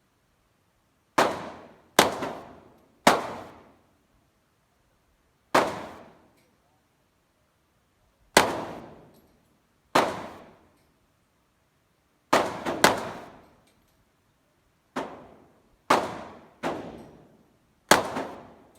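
Gunshots fired one at a time, about a dozen at irregular intervals, with a pair close together near the middle, each ending in a short echoing tail.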